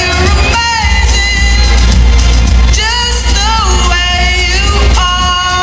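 A pop song with a singer's voice, held notes sliding in pitch, over a backing track with a heavy bass, played loud through a PA.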